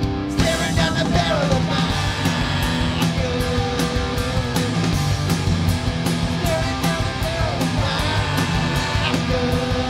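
Punk rock band playing live in an instrumental break: distorted electric guitars, bass and drums with cymbals. The full band with cymbals comes in hard just after the start.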